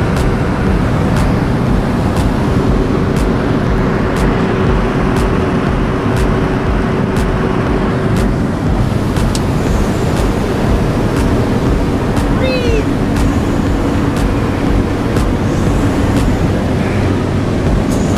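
Steady drone of a skydiving aircraft's engine and propeller, heard from inside the cabin during the climb.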